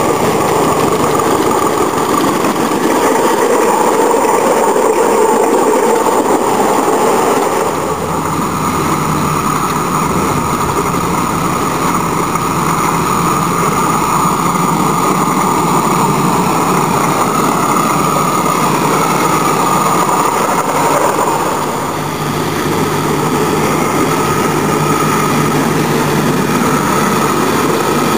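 Miniature live-steam locomotives running on a ground-level track, a steady mechanical running sound with no clear beat. Its tone shifts twice, about a third of the way in and again near the end.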